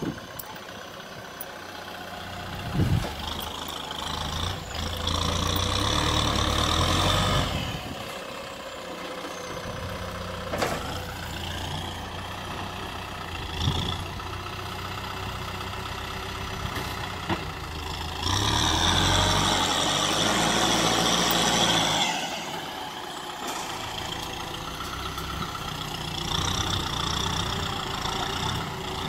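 Kubota M6040SU tractor's diesel engine running as it pushes soil with its front dozer blade, swelling louder twice for a few seconds at a time, with a few short knocks.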